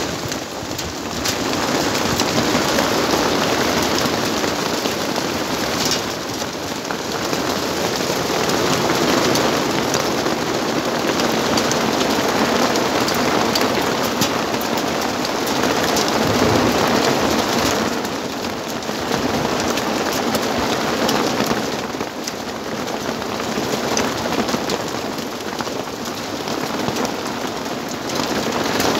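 Heavy hail falling in a thunderstorm: a dense clatter of countless hailstones striking the ground, swelling and easing in strength every few seconds.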